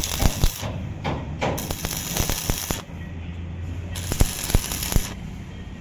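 Arc welding on a truck chassis crack: the welding arc crackling and hissing in three runs of about a second each, stopping and restarting between them, over a low steady hum.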